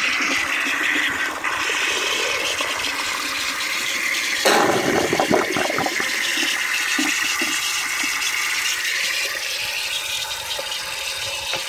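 Restored 1930s cast-iron cistern flushing: water rushing and swirling down through the siphon outlet, with a louder surge of water about four and a half seconds in.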